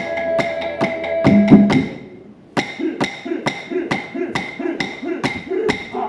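Clapsticks beating a quick, even rhythm of about three to four strikes a second over a didgeridoo drone. The drone ends with a loud short note about a second and a half in. After a brief pause the clapsticks start up again, with a pulsing note on each beat.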